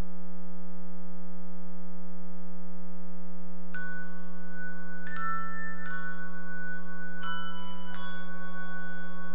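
A steady electrical hum, then a handbell choir begins playing about four seconds in: a handful of struck bell notes, some sounded together, each ringing on.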